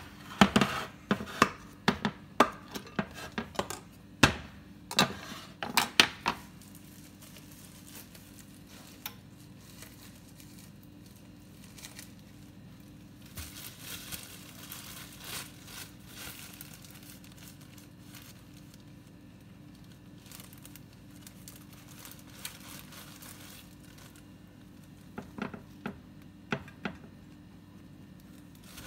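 A run of sharp clicks and knocks as a plastic snap-lock lid is unclipped from a glass dish and the dish is set down on a glass stovetop. Soft plastic crinkling follows partway through, then a few more light knocks near the end as bread slices are laid in the dish, over a low steady hum.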